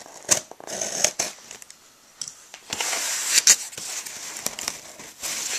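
A cardboard shipping box being opened by hand: packing tape and cardboard crackling and tearing, with clicks and scrapes. A longer, louder tearing stretch comes about three seconds in.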